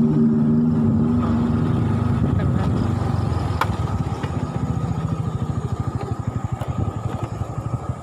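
Motorcycle engine running, heard from on the bike. About two seconds in the steady engine note drops away to a lower, uneven putter of engine pulses.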